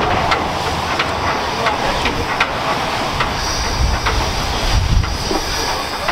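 Hudswell Clarke 0-6-0 tank engine 'Thomas' rolling slowly with steam hissing from its open cylinder drain cocks, with irregular sharp clicks from the engine and rails. A higher, steadier hiss joins about three seconds in.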